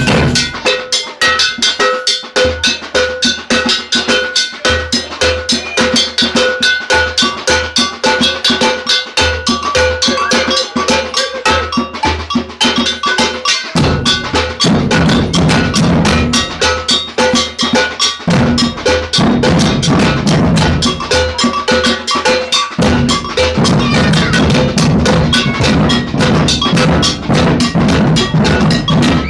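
Samba percussion band playing a maracatu rhythm: agogô bells ring a fast repeating two-pitch pattern over surdo bass drums and snare drums. The low drum pattern changes about halfway through.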